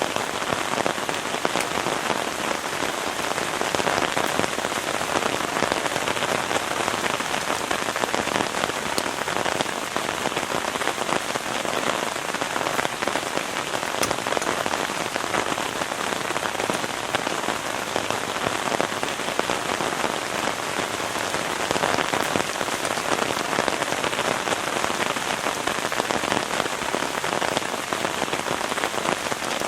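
Heavy rain falling steadily: a dense, even hiss made of many fine drop ticks.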